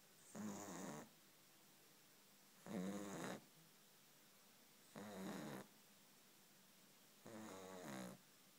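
Puppy snoring in its sleep: four short snores with a clear pitch, each under a second long, coming evenly about every two and a half seconds with quiet breaths between.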